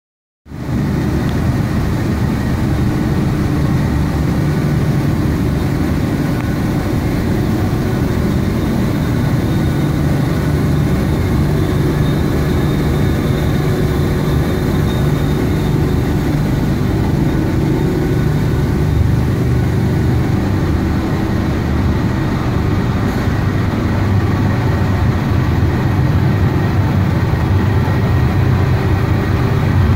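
Fischer & Krecke (F&K) gearless flexographic printing press running, a steady mechanical noise that is heaviest in the low rumble with faint steady tones above it, cutting in about half a second in.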